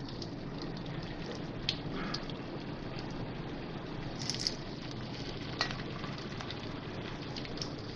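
Coated surmai (kingfish) fish fingers frying in hot oil in a pan: a steady sizzling hiss with scattered small pops and crackles as another piece is slid into the oil.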